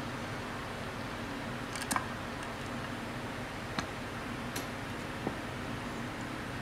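A few light, sharp clicks from parts or tools being handled, over a steady background hiss like a fan.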